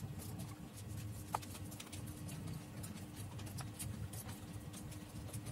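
Faint, scattered small clicks and taps over a low steady hum with a faint steady tone.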